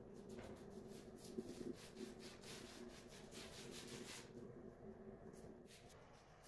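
Faint rubbing and scraping strokes of fingers smoothing white filler into the joint between a marble edge piece and the wall tile, over a low steady hum.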